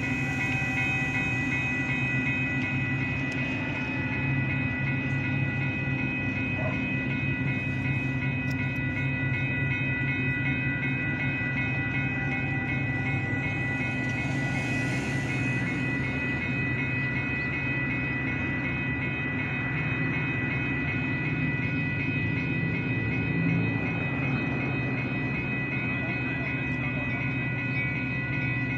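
Railroad crossing bell ringing in a fast, steady pulse over the low steady rumble of a Metra commuter train at the crossing. A car passes about halfway through.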